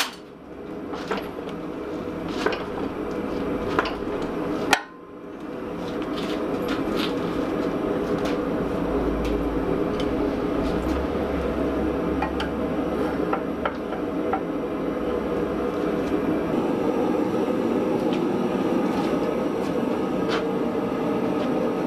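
Hydraulic forging press running with a steady mechanical drone while its ram squeezes a hot steel block. There are scattered light ticks throughout and one sharp knock about five seconds in.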